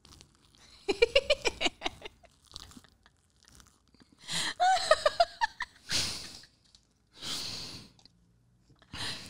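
A man with four marshmallows stuffed in his mouth trying to say a short phrase: garbled, muffled speech-like sounds in two stretches, followed by short puffs of breath.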